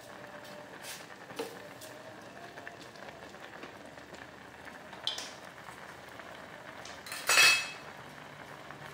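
Pot of noodle soup simmering on the stove, a steady faint bubbling. A utensil clinks against the pot a couple of times, then one loud ringing clank of metal about seven seconds in.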